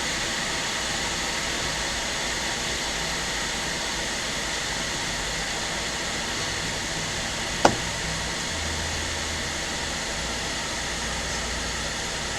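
Steady blowing hiss of air from a bench blower or fan, with one sharp click a little past the middle.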